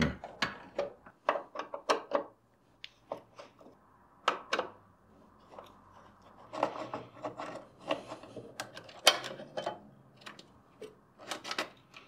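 Hand screwdriver backing out the screws that hold an electronic safe lock body to a steel safe door: irregular clicks, taps and metal-on-metal scraping.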